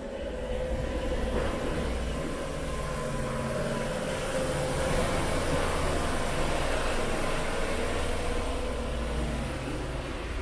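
Motor vehicle engine running steadily, a drone with a steady humming tone, swelling a little around the middle and easing near the end.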